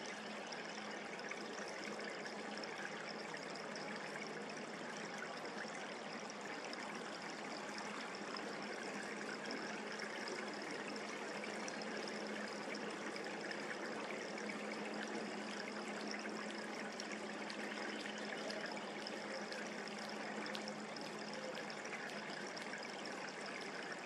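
Steady rush of flowing creek water, an even trickling wash with no breaks.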